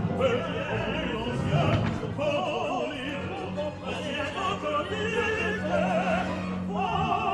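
Opera singing with orchestra: solo voices with wide vibrato over the orchestral accompaniment, a baritone singing at the start.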